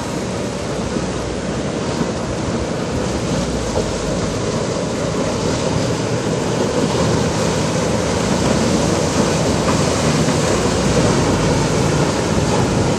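Vanquish VQ58 motor yacht running fast at planing speed: a steady engine drone under the rush of hull spray and wake, growing louder toward the end.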